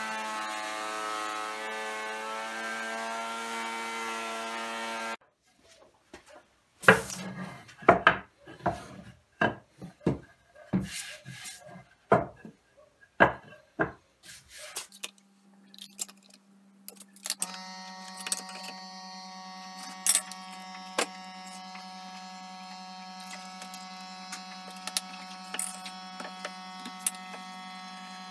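Woodworking sounds. A small power tool runs with a steady whine and cuts off about five seconds in. Sharp, irregular knocks and taps of wood follow, then a steady motor hum with scattered clicks.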